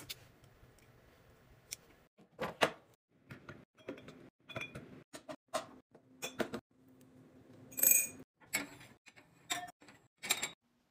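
Glassware being handled and set in place: a string of light taps and clinks as glass jars, mugs and stemmed glasses touch the wooden tray, the metal rack and each other. One clink about eight seconds in rings briefly.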